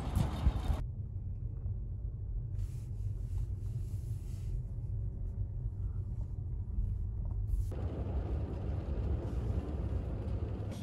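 Low rumble of a car heard from inside the cabin. Near the end a steady hiss joins it.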